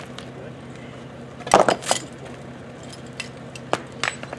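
Metal clinks and clanks from a hand winch rig pulling a stump on a steel cable: a cluster of clanks about one and a half seconds in, then two sharp clinks near the end.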